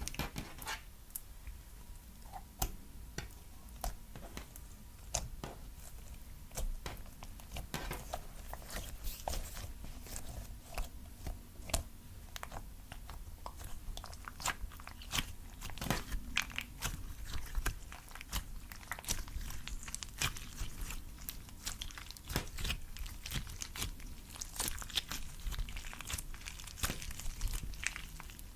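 Clear slime being mixed, making a dense, irregular run of sticky clicks and crackling pops.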